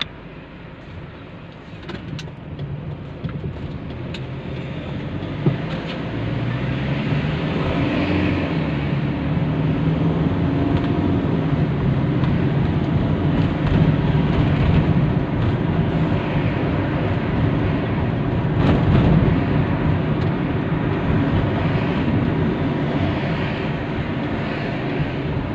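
A car driving, heard from inside the cabin: engine and road noise grow louder as it pulls away and gathers speed, with the engine note rising. A brief knock comes about five seconds in.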